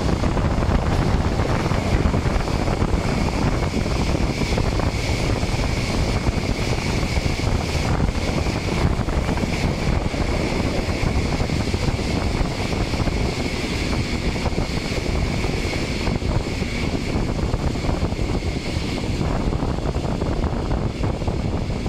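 Passenger train running along the track, heard from a window of the carriage: a steady rolling rumble mixed with wind rushing over the microphone, with a faint steady high tone above it. The noise eases slightly near the end as the train approaches the station.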